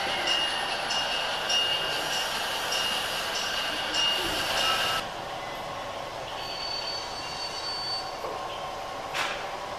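Gauge 1 model narrow-gauge train running on the layout's track: a steady high whine with regular clicking about twice a second. About halfway through the sound drops to a quieter running noise, with a brief high wheel squeal about seven seconds in and a single knock near the end.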